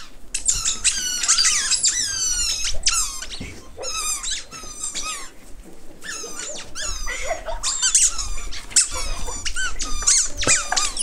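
A long, rapid run of high-pitched squeaks, each sliding down in pitch, following one another several times a second.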